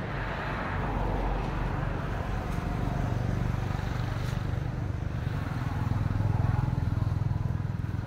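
Low, steady engine rumble of a motor vehicle, swelling louder about six seconds in and easing off near the end.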